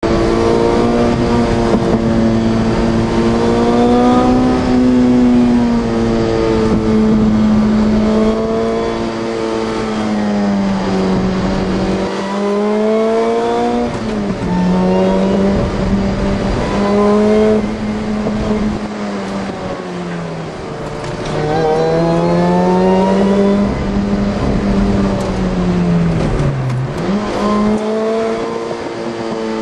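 Car engine fitted with a Ronin supercharger kit running 9.7 psi of boost, heard from inside the cabin while driving. Its pitch rises and falls with throttle and revs, easing down and climbing again several times and dropping sharply once near the end before picking back up.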